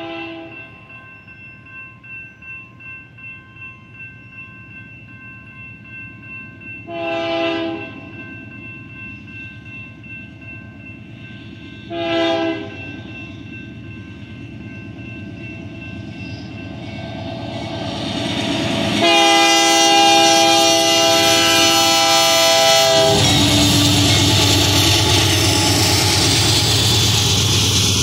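Freight locomotive's air horn sounding for a grade crossing: a short blast about 7 seconds in, another about 12 seconds in, then a long, loud blast from about 19 to 23 seconds, over the steady ringing of the crossing signal bell. The train then passes close by with a loud rumble and clatter of hopper cars on the rails.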